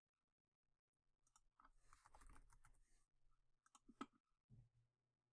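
Near silence with a few faint computer mouse clicks, the most distinct about four seconds in.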